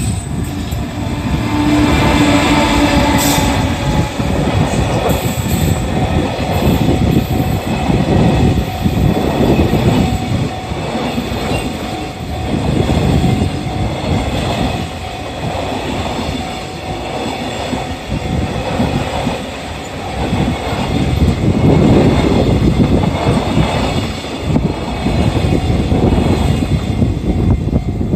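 Freight wagons of an EF210-hauled freight train rolling slowly past at close range, wheels clattering over the rail joints in an uneven run of clacks, with some wheel squeal.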